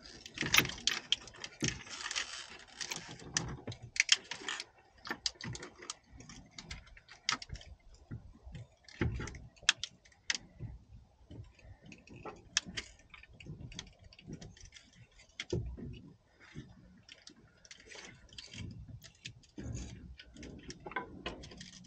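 Irregular metal clinks, knocks and rattles of a high-output alternator being worked by hand into its mount in an engine bay, with a few sharper knocks among them.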